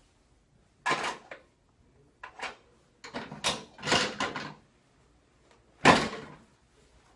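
A chiropractic adjustment on a treatment table makes a series of sharp knocks and clunks: one about a second in, a cluster of them in the middle, and the loudest near the end.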